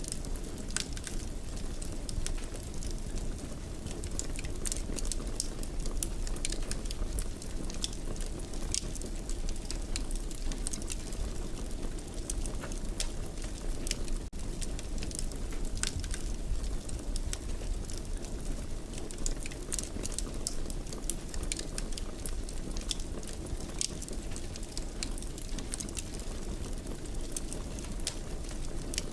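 Wood fire burning in a fireplace, crackling steadily with many small sharp pops over a low, even rumble of flame.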